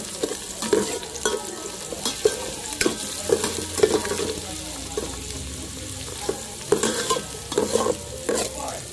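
Chopped onion and garlic sizzling in hot oil in a pan as they are sautéed, stirred with a utensil that scrapes and knocks against the pan at irregular intervals.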